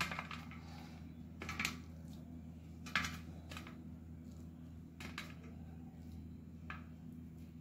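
Faint handling sounds of ripe custard apples being pulled apart by hand over a steel plate: a few scattered soft clicks and rustles, over a steady low hum.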